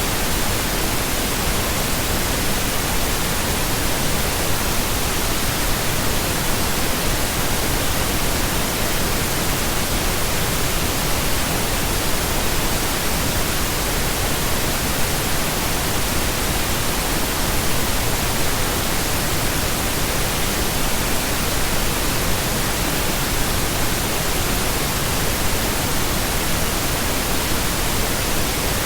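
Steady, continuous pink noise: an even hiss spread across the whole range of pitch, with no changes or events.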